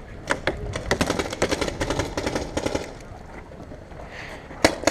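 Rapid volley of paintball marker shots, many a second, which stops after about three seconds, followed by a single loud sharp crack near the end.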